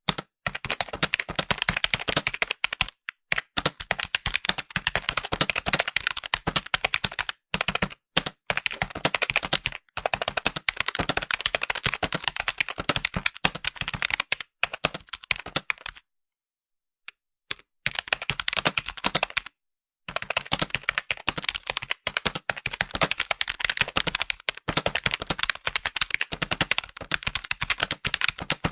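Fast, continuous typing on a computer keyboard: a dense run of key clicks, broken by a few short pauses and one of about two seconds just past the middle.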